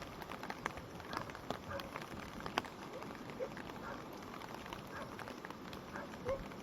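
Stream in spate after heavy rain, its fast water rushing steadily with many small splashes and gurgles, and one sharper splash or knock about two and a half seconds in.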